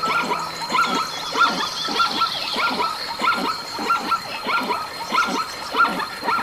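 An animal giving short, yelping calls, evenly repeated about twice a second.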